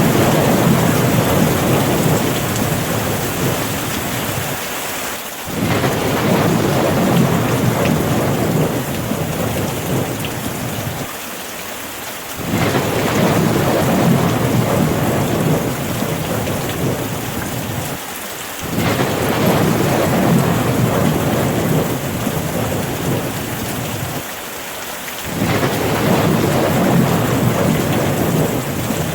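Steady rain. A deep rumble surges in abruptly about every six or seven seconds and dies away, repeating evenly.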